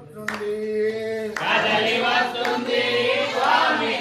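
Group of men chanting a devotional bhajan: one voice holds a note, then the others join in together about a second and a half in, with a few sharp claps.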